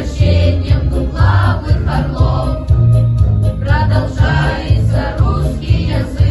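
A children's choir singing in unison over a pop backing track with a steady bass beat.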